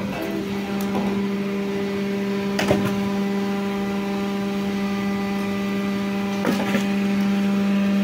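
Motor of a log-splitting machine running with a steady hum, with two brief sharp knocks, one a little before the middle and one near the end.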